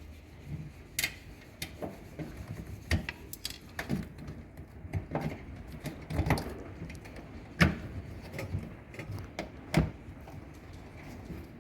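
Irregular clicks, taps and knocks of hands working on a front-load washing machine's front panel and rubber door gasket as the gasket is worked free of the panel, with a few sharper knocks in the second half.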